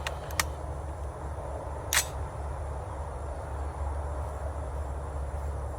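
A few sharp clicks over a steady low rumble, with one louder crack about two seconds in.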